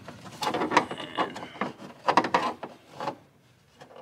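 A pry tool working under the plastic upper dash panel of a GM truck: an irregular run of clicks, scrapes and plastic creaks as the panel is pried up. The sounds die away about a second before the end.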